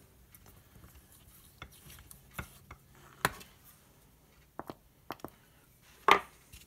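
Scattered light clicks and taps of small metal engine parts being handled on a workbench while a chainsaw piston is oiled, with a sharper knock about six seconds in.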